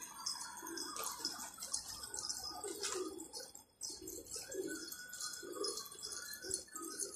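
Domestic pigeons cooing, soft low coos repeating every second or so, with high chirping over them.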